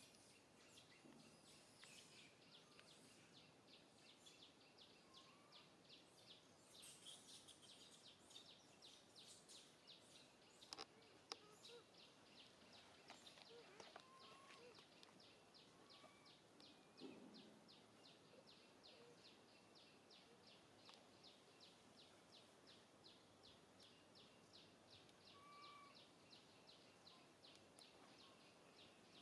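Faint outdoor ambience: a high chirping repeats evenly about three times a second, with a few short high calls and faint clicks now and then.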